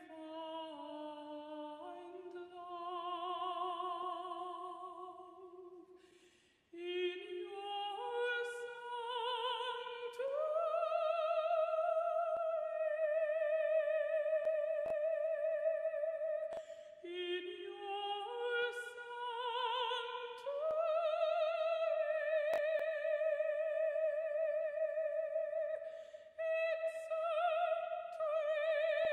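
A high, unaccompanied operatic solo voice singing slow phrases with wide vibrato, each climbing in steps to a long held high note, with short breaks for breath between phrases.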